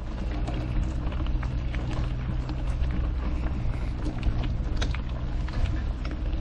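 Mountain bike rolling along a gravel trail: a steady low rumble of tyres and frame, with frequent small clicks and rattles.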